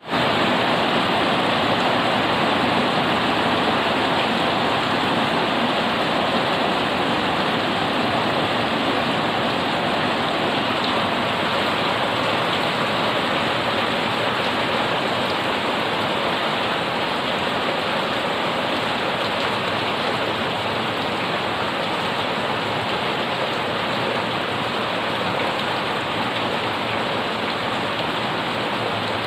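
Heavy rain falling steadily on leaves and a wet paved yard: a dense, even hiss with no let-up.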